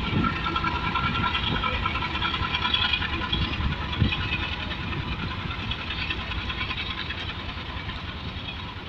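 AGE-30 diesel-electric locomotive pulling a passenger train away from the station, its engine running under power and fading as it moves off, while the coaches roll past with a few low thuds over the rail joints.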